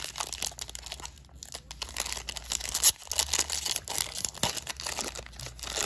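Foil Panini Prizm basketball card pack being torn open along its tear strip and crinkled in the hands: a run of dense plastic crackling, with one sharper crackle about three seconds in.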